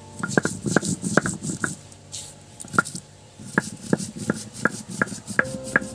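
Crisp, sharp cracks and knocks, about two to three a second with a short lull partway through, as whole fried dried red chillies are crushed into coarse flakes.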